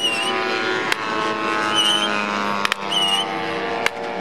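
Model aircraft engine running steadily, its pitch drifting slightly, with several short high chirps and a few sharp clicks over it.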